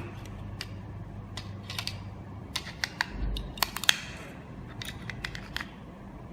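A run of sharp, irregular plastic clicks and taps, loudest about four seconds in: AAA batteries being fitted into a vehicle alarm unit's plastic battery compartment.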